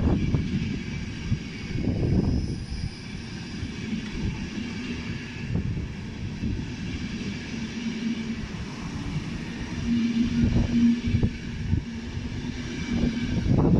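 Loco-hauled passenger coaches rolling past a platform as the train departs: a continuous low rumble with wheels knocking at intervals over rail joints, and a faint steady hum through the second half.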